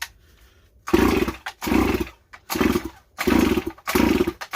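STIHL MS200T top-handle chainsaw being pull-started: about five quick yanks on the recoil starter cord in a row, each a short whirring rasp, beginning about a second in. The engine does not fire: the saw won't start, though it is not flooded enough to explain it.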